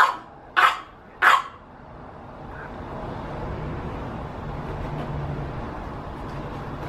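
French bulldog puppy giving three short, sharp barks in the first second and a half. A steady rushing noise then swells in the background.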